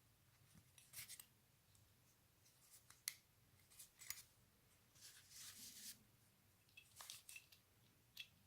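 Faint scattered clicks and short scrapes of small objects being handled, with a longer scraping rasp about five seconds in.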